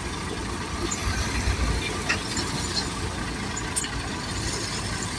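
Engine of a heavy machine idling steadily, a low rumble with a few faint ticks over it.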